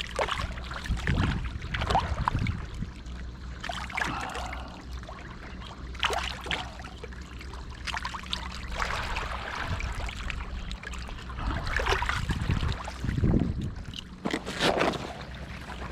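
Water sloshing and splashing in uneven swells, with scattered sharp clicks and knocks.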